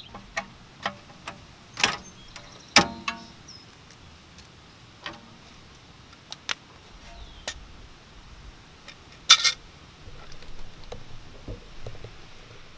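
Irregular metallic clicks and clinks of a hand ratchet and 13 mm socket working on the rear brake caliper bolts, with two louder metal knocks about three seconds in and about nine seconds in.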